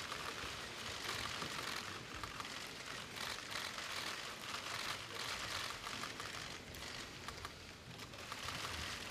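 Many press camera shutters clicking rapidly and overlapping, a dense irregular clatter, as photographers shoot a posed group photo.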